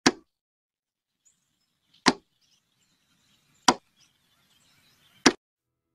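Four sharp, short hits, about one and a half seconds apart, with near silence between them.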